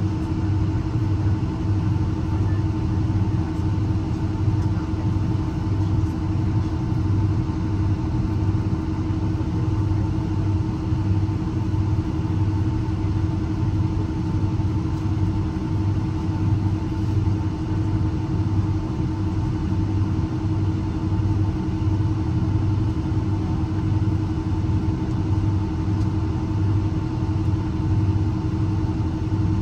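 Steady cabin noise inside a Boeing 757: engine and airflow hum with a low, pulsing throb, holding an even level throughout.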